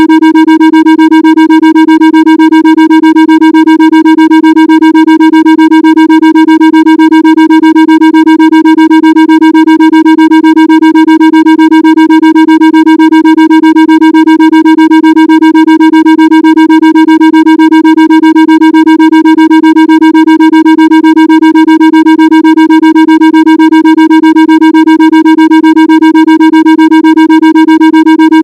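A loud, steady synthesized tone held at one pitch, buzzy with a row of overtones above it and a fine, rapid, even pulsing: a Rife-frequency tone generator signal.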